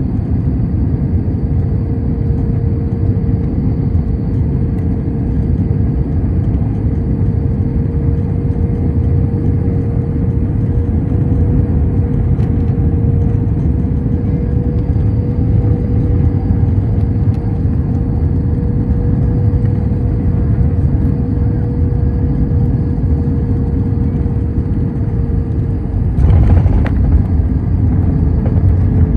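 Airliner landing in strong wind: a steady low rumble of engines and rushing air with a constant hum over it. Near the end the rumble suddenly grows louder and rougher.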